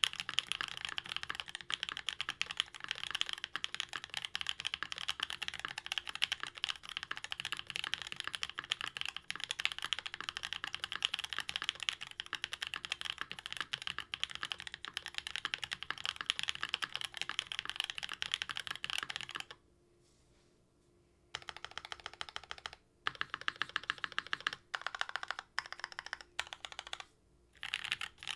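Fast, continuous typing on a Jaguar V2 custom mechanical keyboard with lubed Black Cherry Pies switches, an aluminium plate in an X-ring mount and GMK Klassiker keycaps. The typing stops for about two seconds around two-thirds of the way through, then comes back in short bursts with brief pauses.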